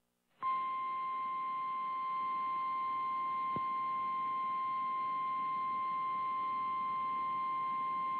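Emergency alert warning tone: a single steady high tone, the NOAA Weather Radio style warning alarm tone, received over FM radio. It starts about half a second in and holds without change over a steady radio hiss, with one faint click about three and a half seconds in.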